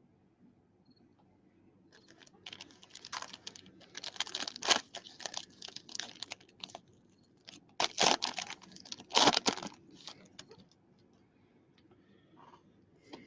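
Foil wrappers of trading-card packs crinkling and tearing as packs are ripped open, in irregular bursts of crackling, loudest near the middle of the stretch.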